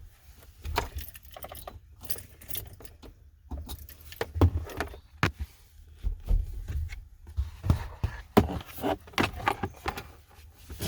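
Keys jangling, with irregular clicks and rustles of small metal parts being handled.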